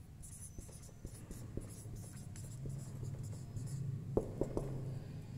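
Whiteboard marker writing on a whiteboard: short scratchy strokes as a word is written out, with a few sharp taps of the marker about four seconds in, over a steady low hum.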